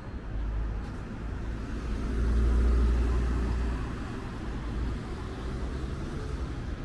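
A road vehicle passing in the street, its low rumble swelling about two seconds in and fading again by about four seconds, over steady street background noise.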